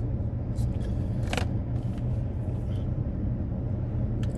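Steady low hum of a car idling with the air conditioning on, heard from inside the cabin. A single brief click about a second and a half in.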